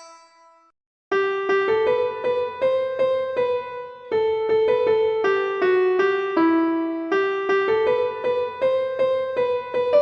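Nokia 3310 ringtone playback: the ringing last note of one tone fades out, and after a short gap about a second in, the next ringtone starts, a quick melody of piano-like notes over a lower accompaniment.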